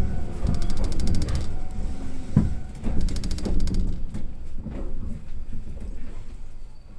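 Iyo Railway train rumbling in motion, with three short runs of fast, high-pitched rattling and a few knocks, fading toward the end.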